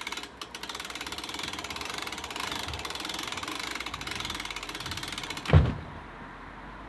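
Rapid, steady mechanical clicking, like a ratchet being worked, for about five and a half seconds, ending in one loud thump; a low hum follows.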